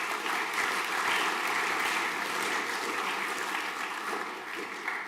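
Audience of school students applauding, dense steady clapping that fades away near the end.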